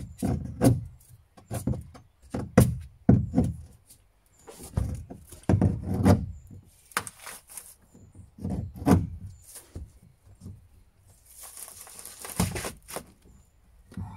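Claw hammer striking a plywood boat floor over and over in irregular knocks, breaking the floor up so it can be ripped out. About eleven seconds in there is a scraping rub of about a second and a half.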